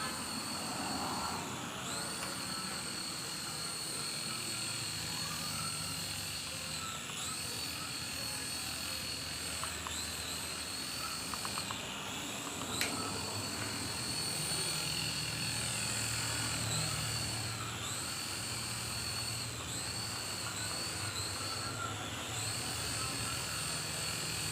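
Mini RC helicopter's small electric motors and rotors whining in flight, a steady high-pitched whine whose pitch dips briefly and recovers several times as the throttle is eased and opened again.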